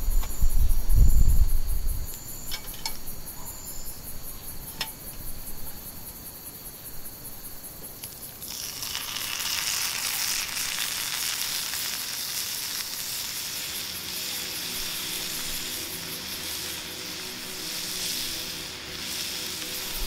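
Meat searing in a cast-iron skillet over a campfire: a steady sizzle that starts about eight seconds in. Before it there are low rumbling in the first two seconds, a few sharp crackles from the wood fire, and faint insects chirping.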